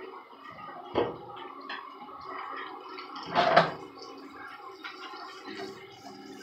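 Salmon frying in butter in a pan, sizzling steadily. A sharp knock comes about a second in, and a louder brief noise about three and a half seconds in.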